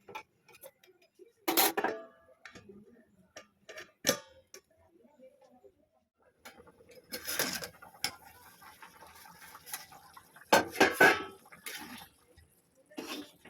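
Metal cooking utensils and dishes clinking and knocking in a series of separate knocks and short clatters. The loudest come about one and a half seconds in and in a quick cluster near eleven seconds.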